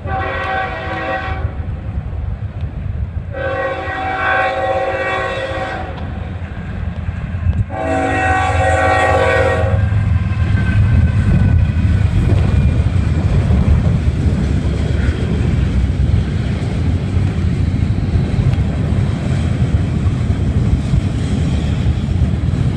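A Norfolk Southern diesel freight locomotive's multi-note air horn sounds three blasts for the grade crossing, the middle one the longest. The locomotive and a string of coal hopper cars then pass close by with a steady low rumble of wheels on the rails.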